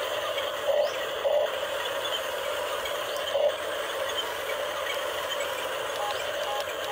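Huina radio-controlled toy excavator's small electric motors and plastic gears whirring steadily as the arm lowers the bucket into water. Three brief louder spurts come in the first half.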